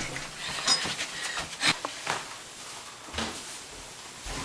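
A few scattered short knocks and clicks over low room noise.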